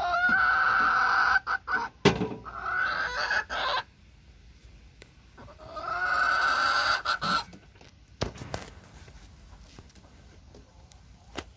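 A chicken crowing twice: a long crow over the first few seconds that rises and holds, then breaks into shorter phrases, and a shorter crow about six seconds in. A sharp knock about two seconds in, and a few faint knocks near the end.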